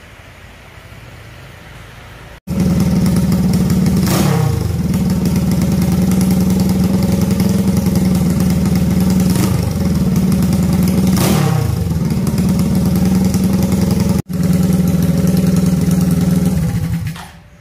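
Home-built two-cylinder motorcycle engine, made from two single-cylinder engines and fitted with short open exhaust pipes, running loud and steady, with two quick sweeps in pitch as it is revved. It cuts in suddenly about two and a half seconds in, drops out for an instant near the end, then fades away.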